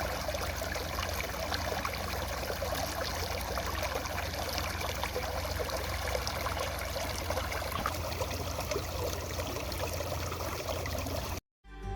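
Water running and trickling steadily, as from a small stream.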